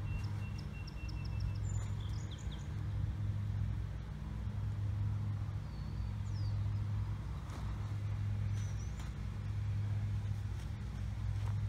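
Small birds chirping in woodland over a steady low rumble. A quick run of high chirps sounds near the start, and a few brief whistled calls follow later.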